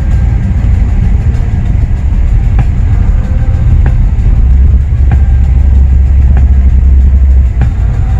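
Low, steady rumble of a car on the move, the hot rod's Chevy 350 V8 and the road, with music playing from the car's stereo.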